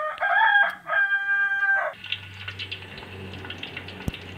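A rooster crowing, a loud two-part crow ending in a long held note, followed by hot cooking oil crackling and sizzling in a wok.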